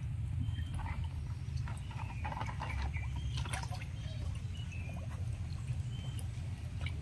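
Small splashes and slaps of water as wels catfish take food at the surface of a muddy pond, over a steady low rumble, with a few short high chirps.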